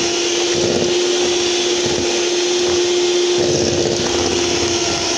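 Electric mixer running steadily in a stainless steel bowl, beating cookie dough with one constant hum.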